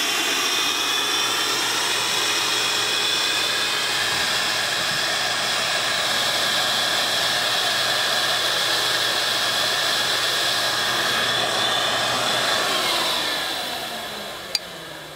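Shop vac motor running with a steady high whine while it pulls vacuum through a hose to suck the oil out of a lawnmower engine. About twelve seconds in it is switched off and winds down, falling in pitch, with a sharp click near the end.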